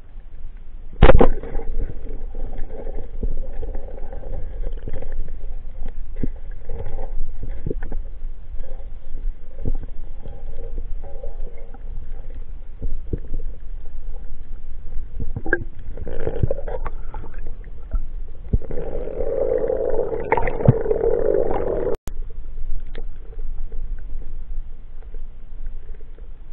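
Underwater, heard through a camera housing: one sharp, loud crack about a second in, the speargun being fired. After it come muffled water noise and scattered knocks and scrapes as the speared fish is handled, with a louder spell of rushing noise about three-quarters of the way through.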